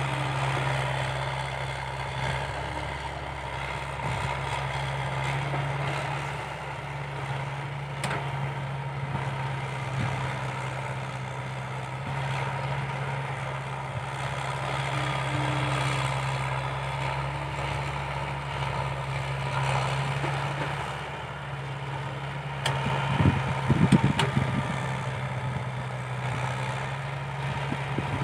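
Komatsu tracked excavator's diesel engine working steadily under load while it swings bucket loads of soil into a dump truck. About three-quarters of the way in there is a short run of louder low thumps.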